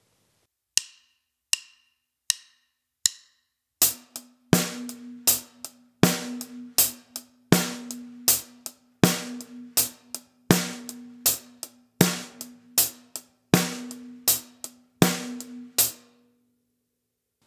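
Drum kit playing a basic groove at about 80 BPM: eighth notes on the hi-hat with the snare drum on beats 2 and 4, after four clicks count it in. The snare rings on briefly after the last stroke.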